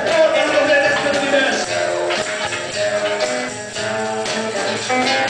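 Live band music: acoustic and electric guitars with a jingling shaken percussion keeping the beat.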